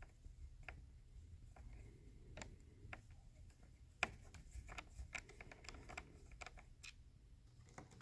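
Faint, scattered clicks of a precision screwdriver turning a screw in a Dell G15 laptop's plastic back panel, with a sharper click about four seconds in and a quick run of clicks after it.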